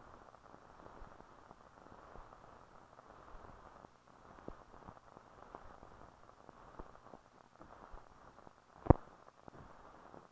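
Hiss and crackle from an old film soundtrack, with scattered faint clicks and one sharp loud pop about nine seconds in.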